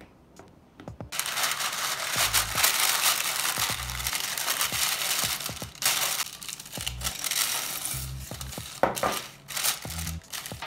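Baking parchment crinkling loudly as it is pressed into a springform pan over pie dough, after a few light fork taps. Near the end, dried beans are poured onto the paper and rattle and click as they are spread. A music beat plays underneath.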